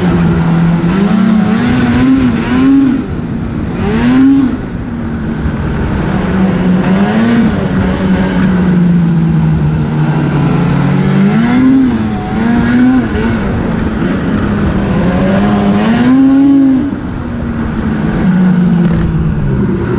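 Arctic Cat Riot 8000 snowmobile's 800 two-stroke engine running on trail, its pitch rising and falling as the throttle is worked, with about seven short surges.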